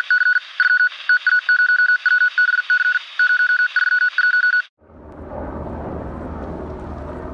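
A loud, high electronic beeping in short and long pulses, like Morse code, over a faint hiss, which cuts off sharply a little over four and a half seconds in. After a brief gap comes a UH-60 Black Hawk helicopter in flight: a steady, low rumble of rotor and engine noise.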